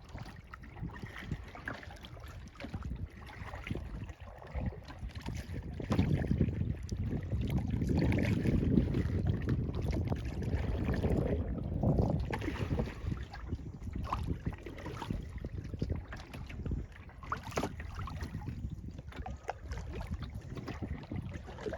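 Kayak paddling on a lake: water splashing and dripping off the paddle blades, with wind rumbling on the microphone that swells for several seconds in the middle.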